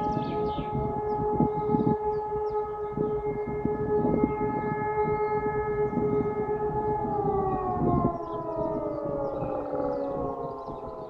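Civil defence siren sounding a monthly test alarm: a steady tone that begins winding down about seven seconds in, its pitch falling slowly as it shuts off. Faint bird chirps can be heard behind it.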